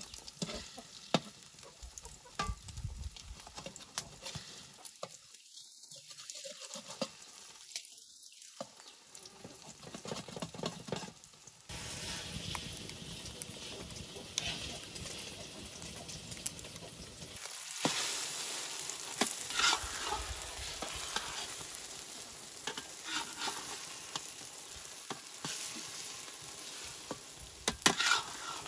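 Eggs with chopped greens sizzling in oil in a large metal wok, with a metal spatula scraping and tapping against the pan. The sizzling gets louder about twelve seconds in and again a few seconds later.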